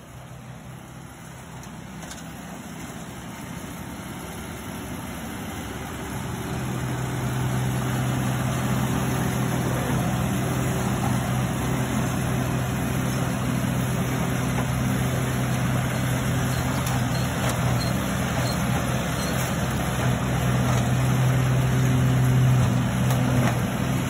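Trailer-mounted leaf vacuum's engine and fan running steadily with a low hum over a rushing hiss as its large hose sucks up raked leaves, growing louder over the first several seconds.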